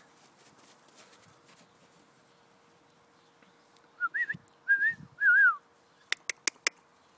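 A person whistling three short, wavering notes, followed about half a second later by a quick run of five sharp clicks.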